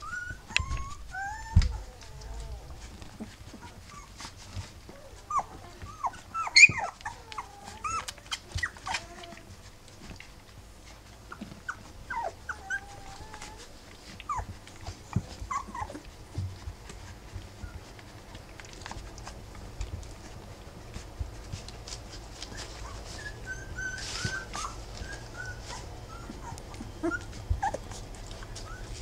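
Three-week-old rough collie puppies whimpering and squeaking while they nurse: short, sliding cries in scattered runs, with soft clicks between them.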